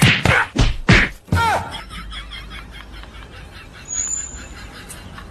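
A run of loud percussive hits, about three a second, stopping about a second in, followed by a short falling tone and then a quiet steady background.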